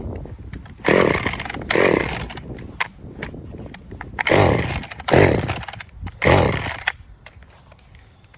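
Chainsaw engine revving in five short bursts, each falling away in pitch, then dropping off after about seven seconds.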